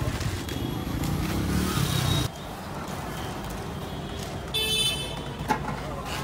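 Busy street traffic. A motor vehicle engine rumbles close by and cuts off suddenly a little over two seconds in, leaving a lower steady hum, with a short horn toot about four and a half seconds in.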